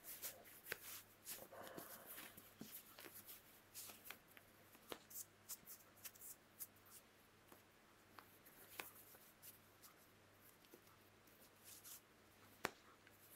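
Faint handling noise: soft rustling and scattered small clicks as hands take off a wristwatch and pull on a thin fabric compression glove.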